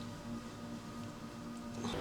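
Faint background music of soft, steady held tones.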